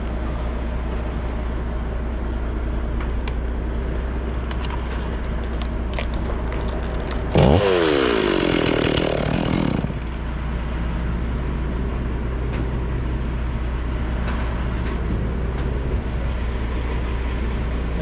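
Chainsaw idling steadily. About seven and a half seconds in it is throttled up to cut through the trunk for roughly two and a half seconds, its pitch sagging under load and then recovering, before it drops back to idle.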